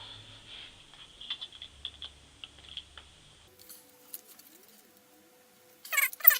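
Small scattered clicks and taps of a screwdriver working the Phillips screws on a MacBook's battery-bay cover, with a cluster of louder sharp clicks and scrapes near the end.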